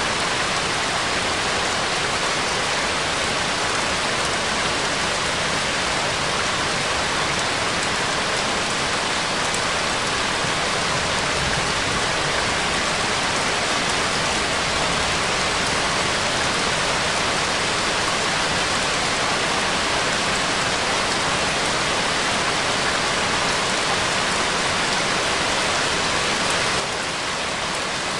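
Steady, even rain-like noise, with no music or voice over it. It drops slightly in level about a second and a half before the end.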